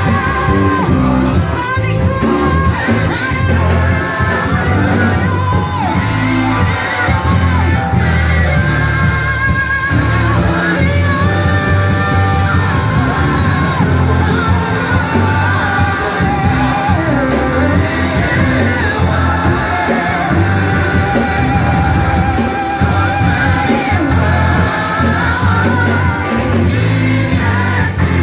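Live worship music: a band with strong bass and voices singing over it, some shouts and whoops among them, in a large hall's echo.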